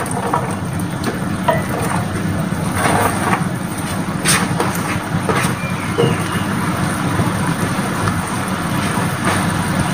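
Stir-fry of chicken and vegetables sizzling in a hot pan as shredded cabbage is tipped in, with a few light knocks from the plate and food. A steady low rumble runs underneath.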